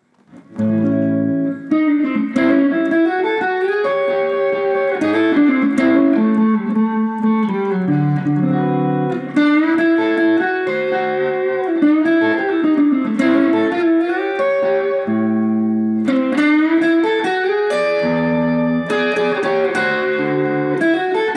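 Electric guitar playing bluesy double-stop phrases with string bends over a shuffle blues backing track in A, with steady bass and chords underneath.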